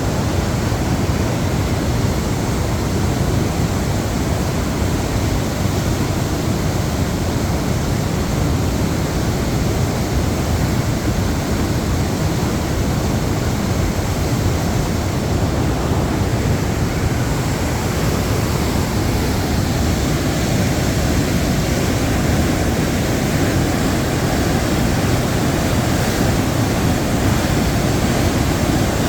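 Waterfall rushing: Numa Falls, a steady loud roar of falling water.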